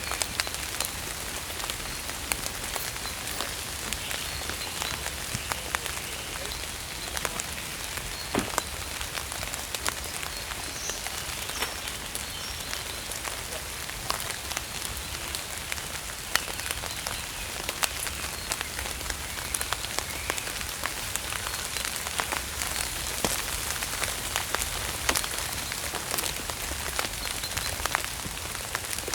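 Steady rain falling, a constant hiss dense with small drop impacts ticking on a surface.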